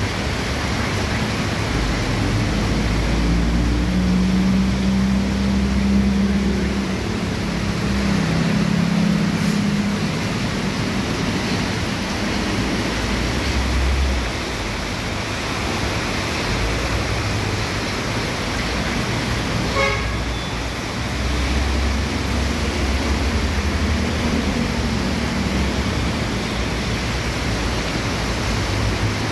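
Heavy rain pouring steadily on a city street, with the low rumble of cars, motorcycles and a truck driving through the downpour.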